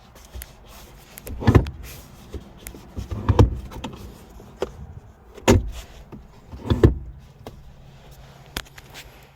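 Four dull thumps, about one and a half to two seconds apart, with light clicks between them, from parts of a car's body or interior being handled.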